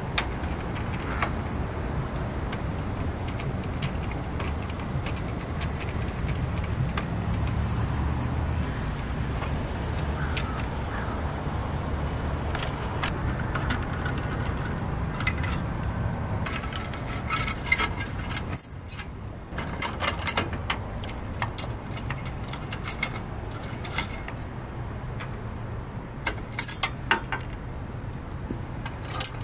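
Small metallic clicks and clinks of a hand screwdriver working the screws of a van's sealed-beam headlamp retaining ring, thickest in the second half. A low steady rumble underlies the first half and stops about halfway through.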